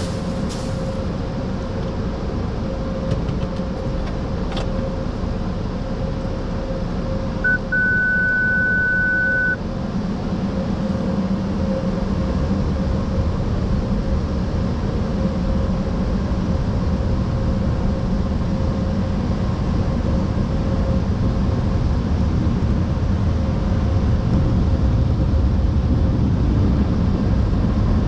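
Automatic car wash equipment running: a steady rushing of air and water with a constant hum, with the low rumble growing stronger from about halfway. A single steady electronic beep sounds for about two seconds near the start.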